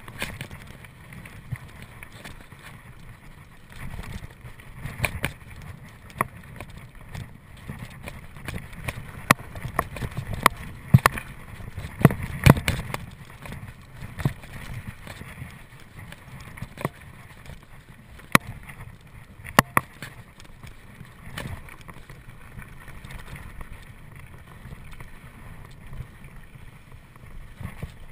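Mountain bike ridden over a rough cross-country trail: a steady tyre-and-trail rumble with irregular sharp clatters from the chain and frame, the loudest cluster about twelve seconds in.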